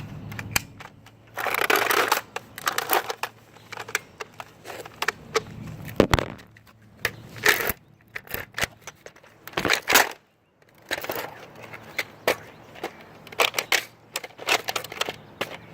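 Irregular plastic clicks, knocks and rustling of a Nerf Rival Apollo blaster and its magazine being handled while foam balls are pushed in to load it.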